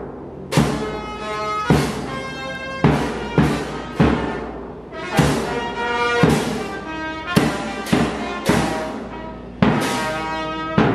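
Small brass band playing a welcome march: trumpet and trombone carry the tune while a pair of hand cymbals crashes on the beat, about once a second.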